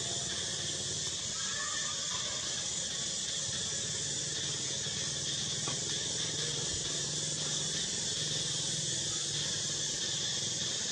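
Steady high-pitched insect drone that holds at an even level throughout.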